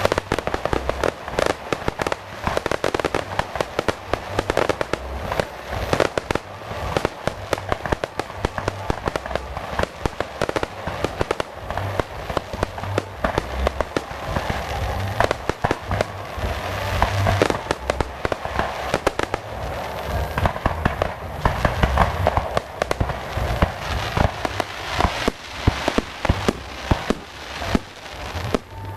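Fireworks going off: a dense, unbroken stream of sharp bangs and crackling pops, many per second.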